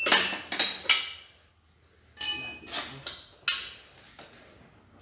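Metal tools and motorcycle parts clanking and clinking: several sharp metallic knocks with a ringing after them, fading out near the end.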